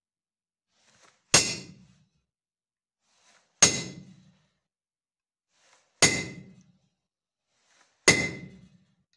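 Hammer blows on a steel punch held against a steel cleaver blade's tang, which lies on a steel block. There are four sharp metallic strikes about two seconds apart, each ringing briefly.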